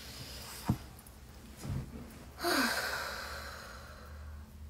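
A person taking a deliberate deep breath: the end of a slow inhale, then about two and a half seconds in, a long audible sighing exhale that starts with a short falling voice and fades away over about two seconds.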